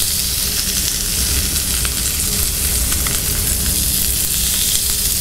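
Red mullet fillets searing in hot oil on a ridged grill pan over a gas flame: a steady frying sizzle with a low rumble underneath.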